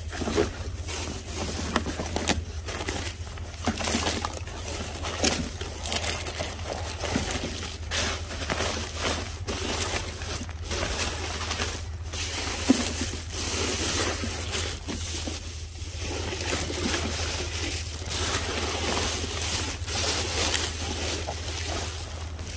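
Plastic bags, bubble wrap and paper rustling and crinkling in irregular handfuls as trash is rummaged through by hand, over a steady low hum.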